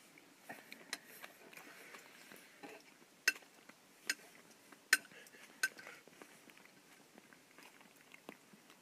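Faint, scattered clicks and taps, about six of them a second or so apart, with nothing steady between them.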